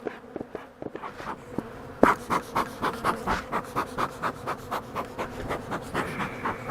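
Bee smoker bellows being worked fast, short puffs at about three or four a second starting about two seconds in, over the faint buzz of honey bees.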